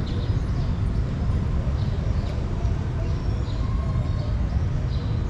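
A cat crunching dry kibble close up, with scattered short crunchy ticks over a steady low rumble and faint bird chirps.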